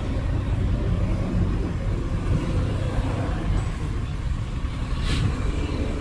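Heavy earthmoving equipment's diesel engine running steadily with a deep drone, and a short hiss about five seconds in.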